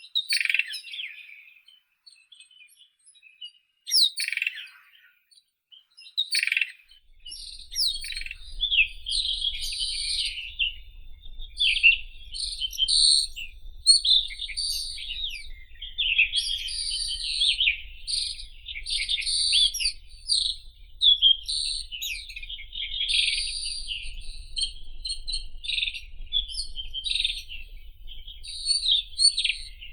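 White-throated robin singing: a few separate short phrases, then from about seven seconds in a fast, nearly continuous run of high chirps and warbles.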